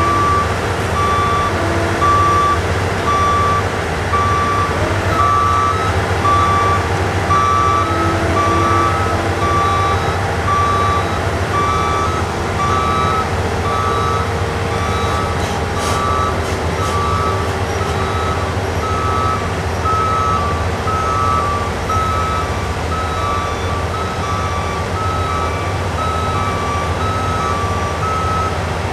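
A construction machine's reversing alarm beeping steadily, the beeps alternating between two pitches, over the constant low rumble of heavy diesel engines.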